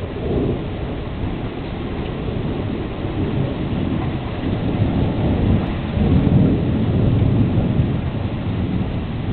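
Thunder rumbling over steady rain in a thunderstorm, the rumble swelling about six seconds in.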